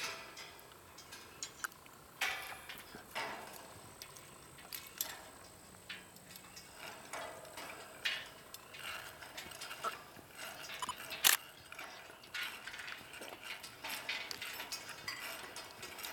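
Irregular light clicks and knocks from the antenna-lifting tackle as slack is taken out of the line, with one sharper click about eleven seconds in.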